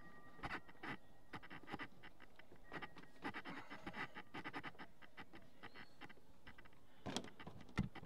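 Irregular taps, knocks and faint clanks from an aluminium extension ladder being climbed, with two louder knocks near the end.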